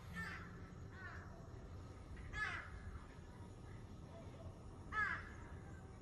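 A crow cawing four times, short harsh calls with the two loudest about two and a half and five seconds in, over a steady low rumble.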